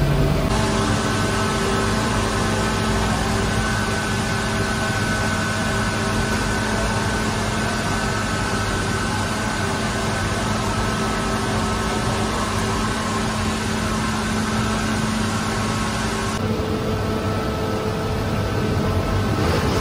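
Large commercial bowl dough mixer running, a steady motor hum with a held whine over a churning rumble as it works a batch of bread dough. The tone changes about three-quarters of the way through.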